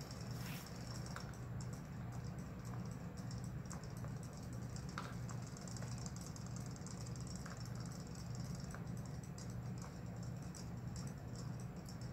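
Several small battery-powered robot fish toys swimming in a plastic tub of water, their tail-flapping motors making a rapid fine ticking and rattling, over a steady low hum.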